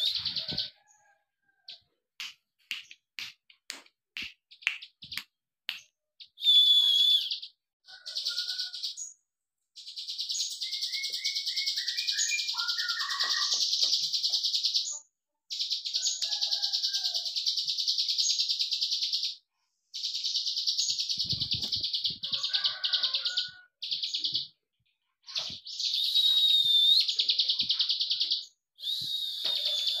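Caged prenjak (prinia) giving its 'klik klik' song: long runs of very fast, high clicking trills a few seconds each, broken by short pauses. Short sharp chirps come before the first run, and a few lower falling notes sound in the middle.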